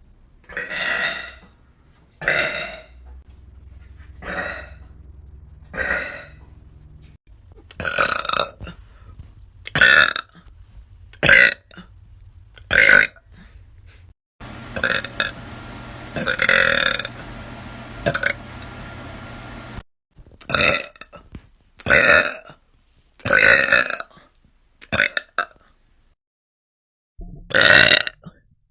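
A person burping over and over, about fifteen separate burps, each lasting under a second, with short pauses between them.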